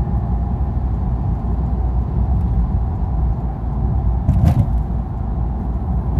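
Steady low rumble of a 2013 Dodge Dart with the 1.4-litre turbocharged four-cylinder, engine and road noise heard from inside the cabin while driving, with a brief knock about four and a half seconds in.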